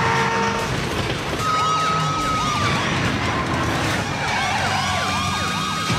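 Police sirens wailing over the sound of car engines and tyres in a high-speed chase, with action music underneath.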